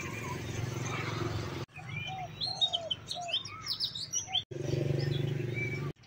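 Birds chirping and calling in a rural outdoor setting, heard in short clips that cut in and out abruptly. A steady low hum underlies the first and last clips, and the middle one is full of quick chirps with a few repeated lower calls.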